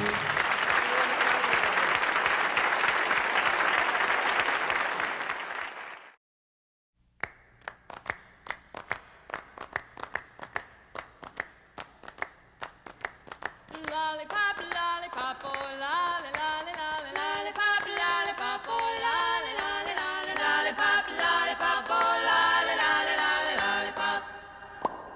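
Applause that fades out, then about a second of silence. A steady beat of hand claps follows, joined about halfway through by a group of voices singing without instruments.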